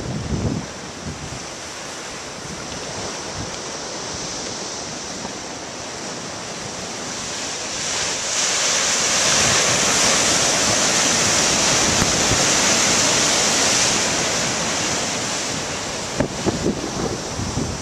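Ocean waves breaking, a steady wash of surf that swells louder for several seconds around the middle as a wave breaks. Wind buffets the microphone in low gusts near the start and near the end.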